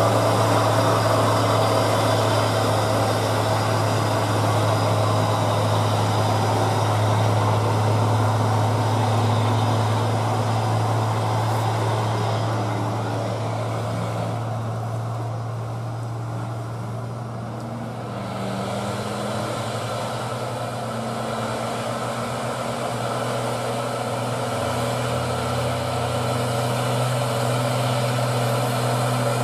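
Heavy diesel engines of loaded dump trucks labouring up a steep grade, a steady low drone. It eases about halfway through, then builds again as a Hino Ranger dump truck climbs toward the listener.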